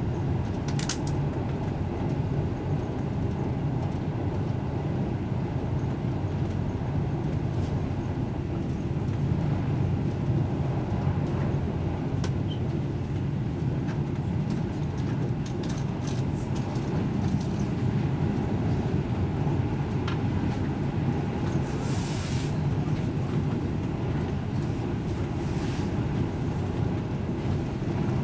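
Passenger railway carriage running at speed, heard from inside: a steady rumble of wheels on track, with scattered sharp clicks and rattles and a brief hiss about three-quarters of the way through.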